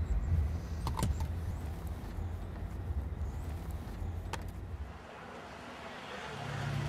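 Low rumbling background noise with a few sharp clicks. The rumble drops away about five seconds in, and a steady low hum starts near the end.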